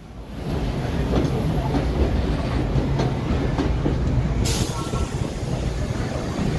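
BMT Standard subway train running on the rails: a steady low rumble that builds up within the first half-second. A short hiss comes about two-thirds of the way through.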